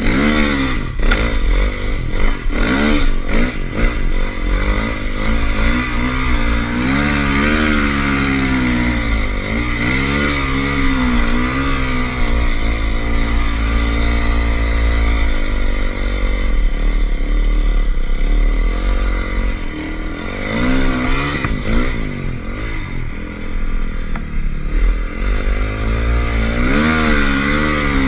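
Snowbike engine running hard and revving up and down over and over as the bike climbs and carves through deep snow, heard close from an onboard camera, with a low rumble underneath.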